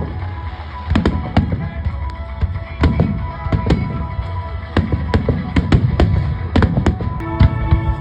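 Aerial firework shells exploding one after another at an irregular pace, about two sharp bangs a second, over music.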